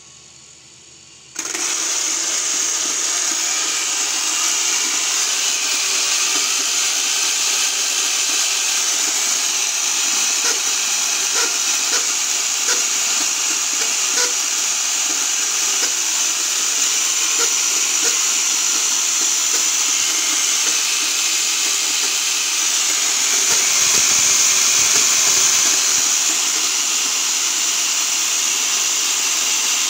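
An RC car's electric motor and drivetrain spinning fast, turning a 12-volt DC motor through a pinion so that it works as a generator charging the battery. A steady high-pitched whine with gear noise starts suddenly about a second and a half in and swells slightly about three-quarters of the way through.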